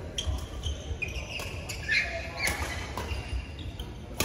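Badminton hall sounds: scattered sharp racket strikes on shuttlecocks and short squeaks of court shoes on the mats, ringing in a large hall.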